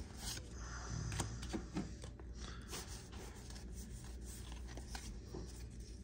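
Pokémon trading cards being handled and slid through the fingers: faint rustling and sliding with a few soft clicks.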